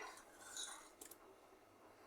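Near silence: room tone, with a faint short sound about half a second in and a faint click about a second in.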